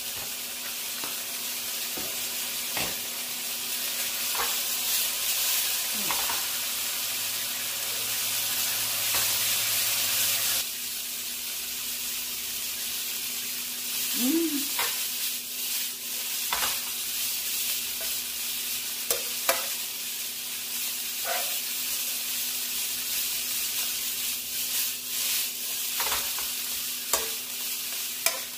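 Shrimp and garlic chive stalks sizzling in a nonstick frying pan as they are stir-fried, with a steady hiss and the metal spoon clicking and scraping against the pan now and then.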